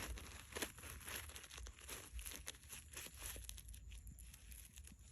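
Faint crinkling and rustling, with many small irregular clicks, as of material being handled or crumpled.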